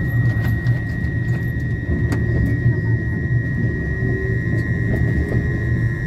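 Inside a passenger train carriage moving slowly out of a station: a steady low rumble of the train running on the track, with a steady high whine throughout and a few faint clicks.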